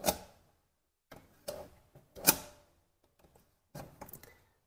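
Double-spring soft-close ball-bearing drawer slide being pushed shut: a string of sharp metal clicks and light rattles from the rails and the soft-close damper, the loudest a little after two seconds in.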